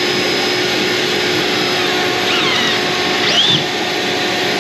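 Steady whir of a cordless drill boring into the wall through a TV mount bracket, with a dust-extraction vacuum drawing through a shroud at the bit. A few short, gliding squeaks come between about two and three and a half seconds in.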